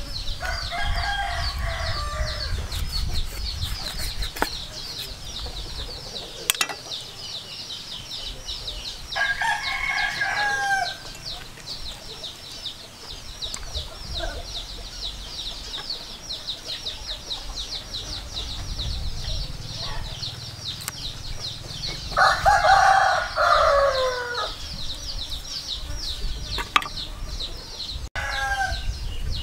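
A rooster crowing four times, the loudest crow about three-quarters of the way through, over a steady high-pitched pulsing drone.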